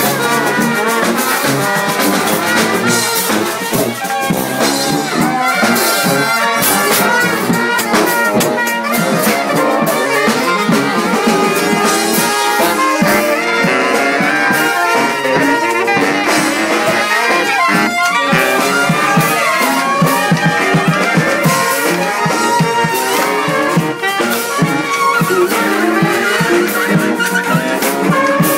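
Live street brass band playing loudly: several horns, trumpets and trombones among them, over percussion.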